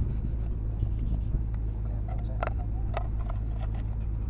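Scattered scrapes and clicks as bare stranded earthing cables and an exothermic-welding mould are handled on gravelly ground, with two sharper clicks in the second half. A steady low rumble runs underneath.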